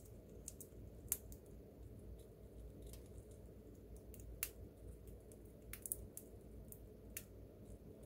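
Siberian chipmunk chewing and cracking seeds held in its forepaws: faint, irregular small clicks and crunches, sharpest just after a second in and again around the middle and near the end, over a low steady hum.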